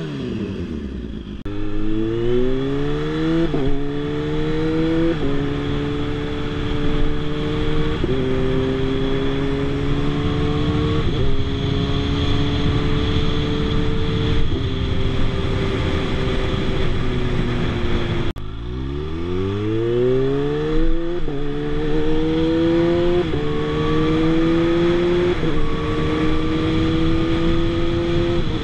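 Kawasaki Z H2's supercharged inline-four through an IXIL RC slip-on exhaust with the dB killer left out, accelerating up through the gears: the note climbs, then drops at each of several upshifts. It breaks off abruptly about two-thirds of the way through, and a second run up through the gears follows.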